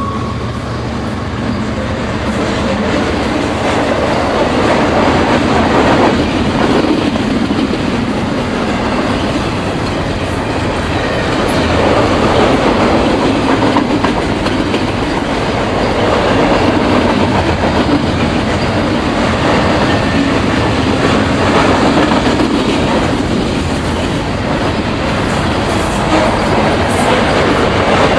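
Double-stack container cars of a Canadian Pacific intermodal freight train rolling past, the steady noise of steel wheels on the rails.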